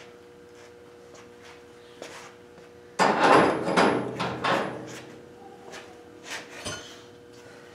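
A sudden burst of clattering knocks about three seconds in, lasting a couple of seconds, as a spoked wheel is handled and fitted onto a go-kart's front spindle. A few lighter knocks follow, over a steady faint hum.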